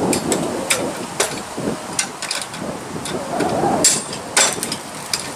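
A series of irregular sharp taps and knocks, about eight of them, over a low rumbling noise like wind on the microphone.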